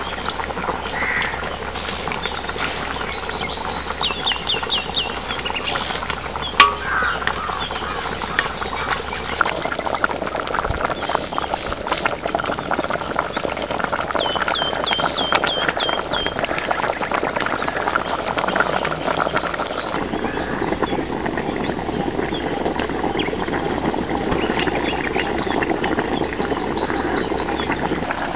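Birds chirping in short, rapid trills several times over the steady bubbling of a fish curry boiling hard in a wide kadai. One sharp knock about six seconds in.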